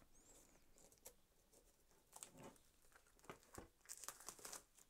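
Faint crinkling, scratching and soft ticks of plastic shrink wrap being torn and peeled off a steelbook case, more frequent in the second half.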